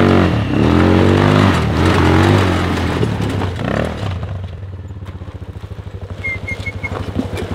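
Quad ATV engine revving as it climbs a gravel mound, the pitch rising and falling for about three seconds, then settling to a quieter, evenly pulsing low-speed run.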